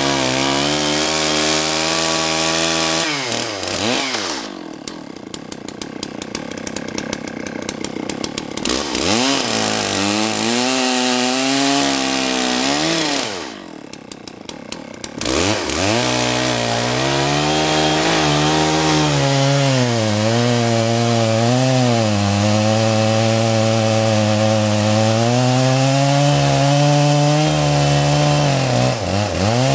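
Two-stroke chainsaw cutting into a large oak log, its engine pitch wavering as the chain works through the wood. The saw eases off twice, about four seconds in and again around thirteen seconds, then revs back up into the cut.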